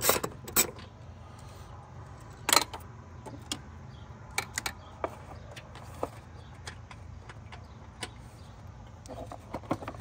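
Scattered clicks and knocks of a wrench and hands working on a plastic air box in a car's engine bay, the loudest about two and a half seconds in, over a steady low hum.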